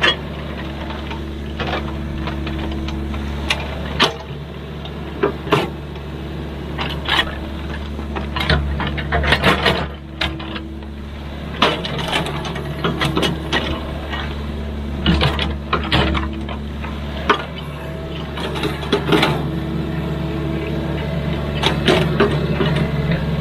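Excavator's diesel engine running steadily, with frequent sharp metallic clanks and knocks from the machine at work.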